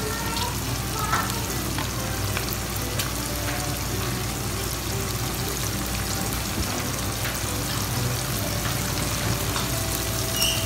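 Onions and bell peppers sautéing in oil in a wok: a steady sizzle with a few faint ticks.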